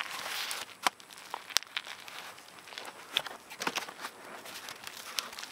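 Cardboard concrete tube form being peeled and torn off by gloved hands: a scratchy rustle at first, then scattered sharp snaps and crackles as the paper layers rip.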